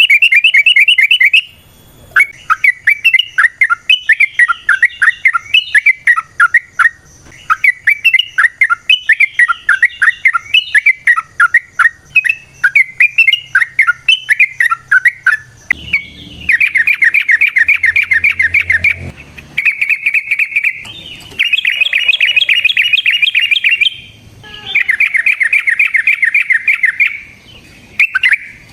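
Yellow-vented bulbul singing: about fourteen seconds of quick, varied chattering notes, then a series of fast rattling trills, each lasting one to three seconds, separated by short pauses.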